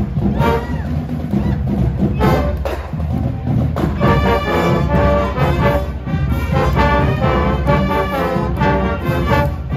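High school marching band playing: trumpets, trombones and sousaphones with drums, the brass growing fuller about four seconds in.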